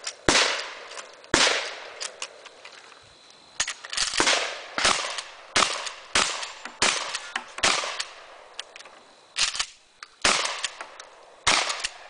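Shotgun fired about a dozen times in an irregular string, some shots under a second apart and others with pauses of one or two seconds, each shot trailing off in a short echo, with fainter clicks in between.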